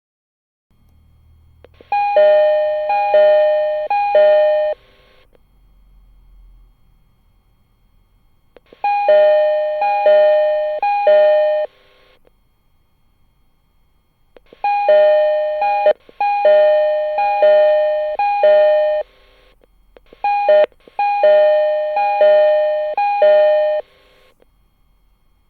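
Door chime of a JR East 209 series train, played from the door-top LED unit's sound chip: a falling two-note electronic ding-dong rung three times in a row. The set sounds four times with pauses between, and one start is cut off and restarted near the end.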